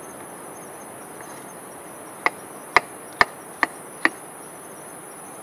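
Chef's knife chopping through a cucumber onto a wooden cutting board: five sharp chops about half a second apart, starting a little over two seconds in. A steady high-pitched insect chorus runs underneath.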